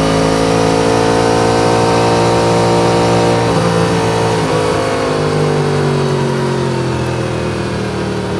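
Yamaha MT-10's crossplane inline-four engine running at road speed, its pitch climbing gently, changing abruptly about three and a half seconds in, then slowly falling as the bike eases off, with wind rushing past.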